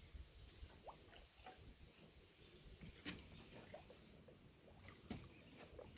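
Near silence: faint outdoor ambience with a low rumble, scattered faint chirps, and two soft clicks about three and five seconds in.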